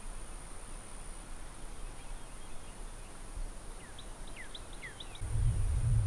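Woodland evening ambience: a steady high insect drone, with a bird giving a quick run of short chirps about four seconds in. Just after five seconds a low rumble comes up on the microphone.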